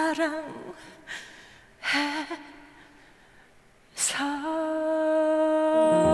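A woman singing solo with vibrato, unaccompanied: two short phrases, then a long held note from about four seconds in, with the band coming in underneath near the end.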